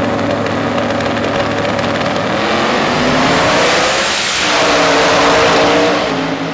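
Two Outlaw 10.5 drag cars' engines holding steady on the starting line, then launching at full throttle. Loud wide-open running sweeps past with a dip and rise in pitch about four seconds in, and begins to fade down the track near the end.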